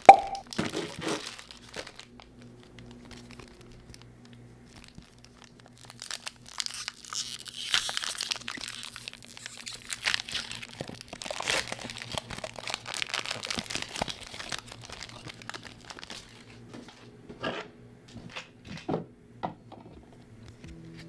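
Foil Pokémon booster pack wrapper crinkling as it is torn open and handled, for about ten seconds starting a few seconds in, followed by a few short clicks. A faint steady hum runs underneath.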